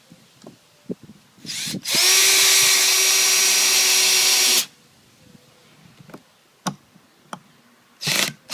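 RIDGID 18V X4 compact drill/driver in low gear (transmission setting 1) driving a pocket-hole screw into a 2x4: a brief blip of the trigger, then the motor runs steadily for about three seconds as the screw goes in, followed by a few light clicks and another short burst near the end.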